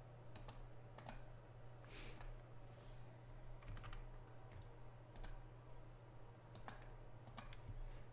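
Faint, scattered clicks of a computer mouse and keyboard, about ten in all, several coming in quick pairs like double-clicks, as a command is selected, copied and pasted into a terminal.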